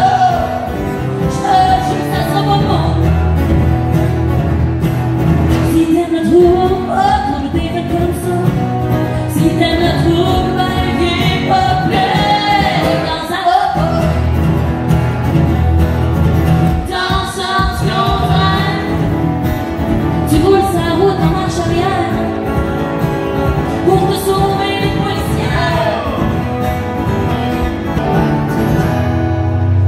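Live country-folk song: a woman singing in French over two strummed acoustic guitars, amplified through a PA.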